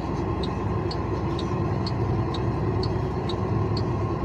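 Diesel truck engine running steadily at low speed. A light regular tick about twice a second runs over it.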